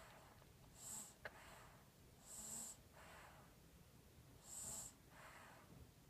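Quiet snoring of someone asleep: slow breaths about every two seconds, each a short hissing breath followed by a softer one. A single small click a little over a second in.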